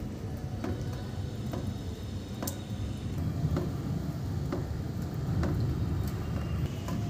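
Water dripping onto wet concrete, one sharp drop about every second in a steady rhythm, over a steady low rumble of rain.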